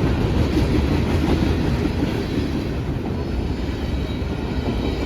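Freight cars of a mixed manifest train rolling past, the steel wheels on the rails making a steady rumble.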